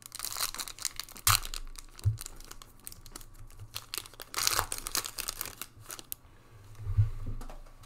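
Foil wrapper of a Panini Prizm football retail card pack being torn open and crinkled by hand, in ragged rustling bursts, loudest about a second in and again around four and a half seconds. A low bump of handling near the end.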